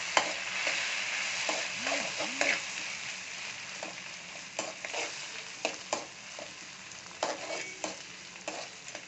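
Chopped tomatoes and sliced onions sizzling in hot oil and ghee in a metal kadai, with a spatula scraping and knocking against the pan as they are stirred. The sizzle is loudest in the first couple of seconds after the tomatoes go in and then eases a little, while sharp spatula clicks keep coming.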